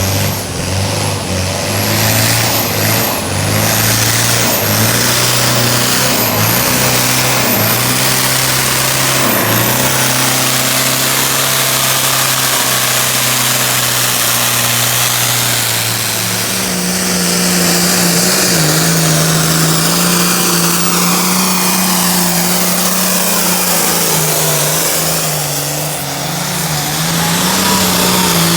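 Modified pulling truck's engine running at high revs under load while dragging a weight sled, its pitch stepping up about halfway through.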